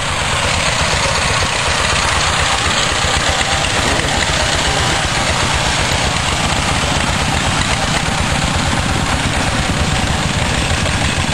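Two-wheel walking tractor's single-cylinder diesel engine running with a loud, rapid, steady chugging.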